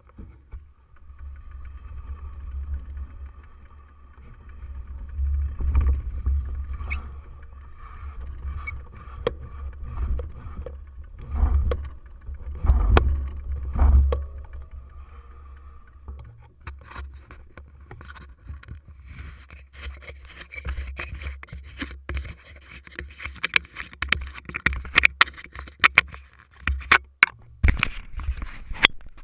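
A bicycle rolling over bumpy dirt, heard through a handlebar-mounted camera: a steady low rumble of wind and vibration, with knocks from the bike. The rattling and clicking thicken in the last ten seconds.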